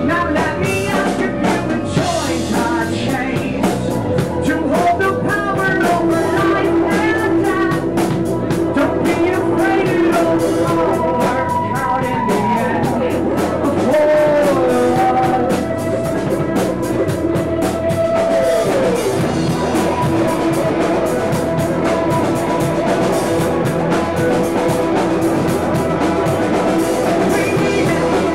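Rock band playing a song: drum kit and electric guitars with a singer's voice over them.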